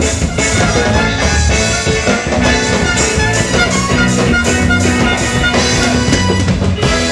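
Loud music with drums and a steady beat, playing continuously.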